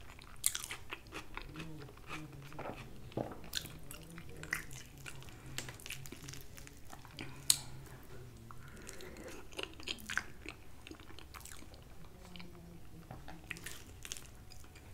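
Close-up chewing and mouth sounds of a person eating soft food from a fork, with many small wet clicks and smacks.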